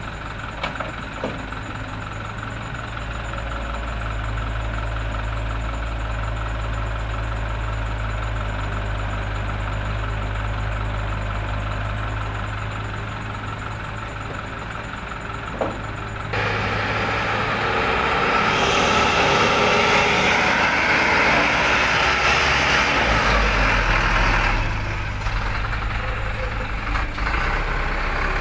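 Diesel engines of a Doosan DX55 excavator and a Thaco Forland dump truck running steadily while the excavator loads soil, with a couple of sharp knocks. About two-thirds of the way through, the sound changes abruptly to a louder, rougher engine noise, which eases a few seconds before the end.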